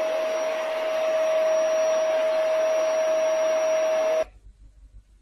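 A small electric appliance motor whirring steadily with a constant mid-pitched whine, cutting off suddenly about four seconds in.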